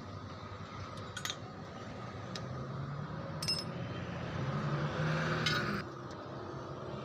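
A few light metallic clinks over a low mechanical hum; the hum swells and then cuts off suddenly about six seconds in.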